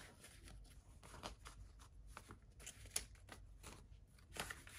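Faint rustling and a few light clicks of paper banknotes and cash envelopes being handled, the clearest about three seconds in.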